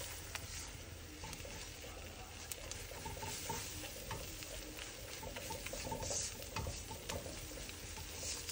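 A silicone spatula stirring and scraping flour and melted butter around a nonstick pan, with light scattered taps, over a faint sizzle as the roux cooks toward golden.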